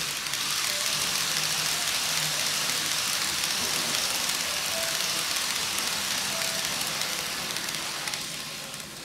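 N gauge model of a JNR 185 series electric train running on its track: a steady high hiss of wheels and motor that builds up, holds, and fades near the end as it passes.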